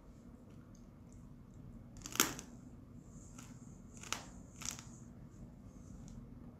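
Biting and crunching into pieces of spicy marinated raw crab (yangnyeom gejang) in its shell: a few sharp crunches, the loudest about two seconds in and several smaller ones between three and five seconds in.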